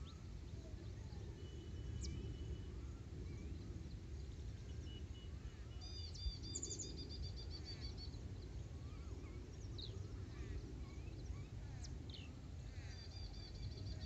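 Small wild birds chirping and calling, with a fast trill of repeated high notes about six seconds in and again near the end, over a steady low background rumble.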